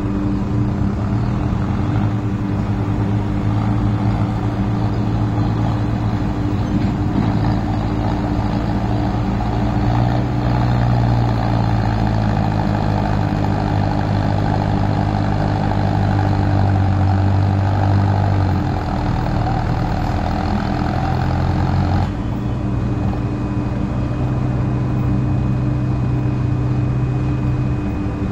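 Mahindra tractor's diesel engine running under load as it pulls two loaded sugar cane trailers through deep mud: a steady engine drone whose pitch shifts a little. About three-quarters of the way through, the engine's sound changes suddenly and a higher steady tone comes in.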